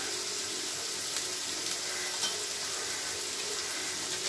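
Ground onion-tomato masala sizzling steadily in hot oil in a steel kadai.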